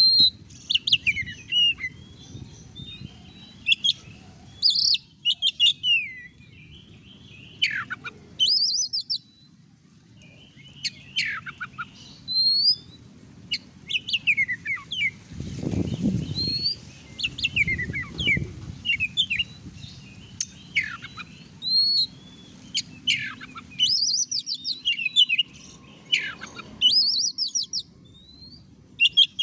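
Oriental magpie-robin singing: a long run of short whistled phrases and quick chattering notes with sweeping pitch, broken by brief pauses.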